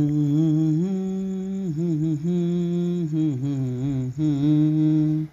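A man's voice humming a slow melody, holding notes with slight wavers and sliding between them, with short breaks between phrases.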